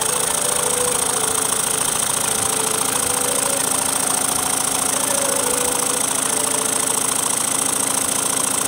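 Model mill engine running steadily on compressed air, its fast, even exhaust beats over a constant hiss as it drives a small 12-volt generator.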